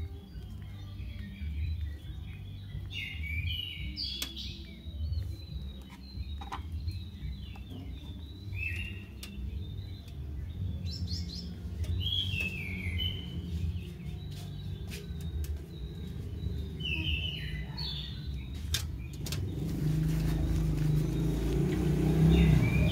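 Scattered short, high chirps, several falling in pitch, over a steady low rumble. Near the end a motor vehicle engine grows louder.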